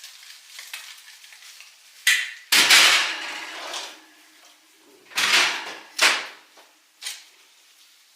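Handling of a hot baking pan and utensils: a handful of sudden knocks, scrapes and rustles, the longest lasting about a second, over a faint sizzle from the just-baked bacon-wrapped chicken near the start.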